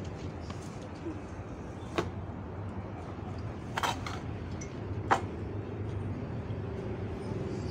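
A small shovel knocking and scraping against a plastic basin as chopped grass is scooped in: three sharp knocks, about two, four and five seconds in, the last the loudest, over a steady low hum.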